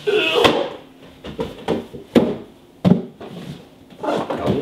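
Cardboard packaging being handled: an inner box slid out of its outer carton, with rustling scrapes and a few sharp knocks of cardboard.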